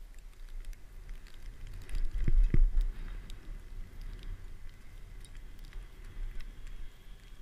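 Skis running through snow, with a steady rumble of wind on the camera's microphone and scattered small clicks; a louder buffet of low thumps about two seconds in.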